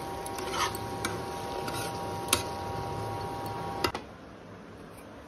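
A metal spatula stirring vegetables in a nonstick pan, clicking sharply against it a few times, over the steady hum and faint whine of an induction cooktop. About four seconds in, the hum stops after one last sharp click, and the sound goes quieter.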